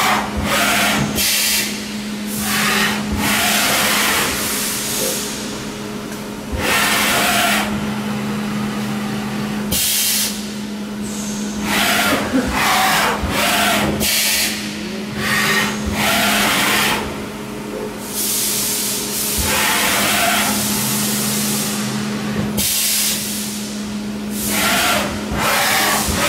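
A vertical machining centre's automatic tool changer at work: repeated short bursts of compressed-air hiss, about a dozen of them, from the pneumatic tool release and air blast at the spindle. Under them runs a steady machine hum.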